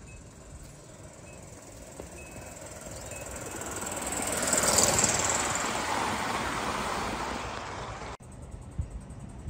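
O gauge live steam GNR Atlantic locomotive and its train running past: a rushing hiss of steam and wheel noise that swells to its loudest about halfway through, then fades and cuts off suddenly near the end.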